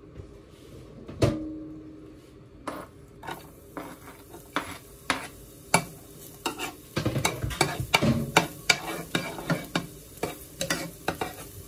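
Chopped garlic sizzling in hot oil in a nonstick frying pan while a metal spoon stirs it, scraping and tapping against the pan many times, fastest in the second half. One loud knock comes about a second in.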